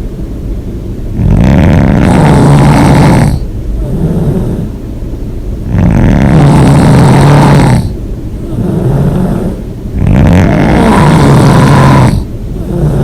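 A person snoring loudly and heavily. There are three long snores, each about two seconds, coming roughly every four and a half seconds, with quieter breathing between them.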